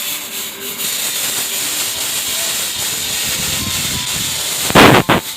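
Fog (smoke) machine, the 1200 model, spraying fog with a steady loud hiss. Near the end come two short, loud bursts of noise, the second briefer, and the hiss then cuts off.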